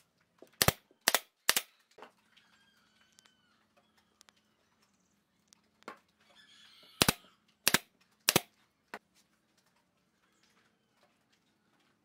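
Pneumatic nail gun firing into pine boards: a quick run of three sharp shots about half a second apart, then another run of three about six seconds later.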